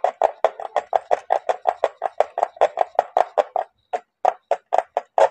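A bare hacksaw blade worked by hand, sawing back and forth through an old switchboard's face panel to cut out an opening, in quick even strokes about five a second. After a short break near the end, the last few strokes come slower.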